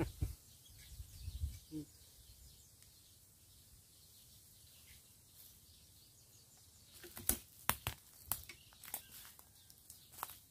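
Quiet outdoor background, then about ten sharp, irregular clicks and taps in the last three and a half seconds.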